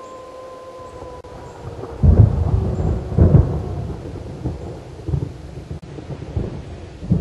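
A wolf's long, steady howl, falling slightly in pitch, fades out about a second and a half in. Then loud, low rumbling bursts follow, the strongest about two seconds and three seconds in.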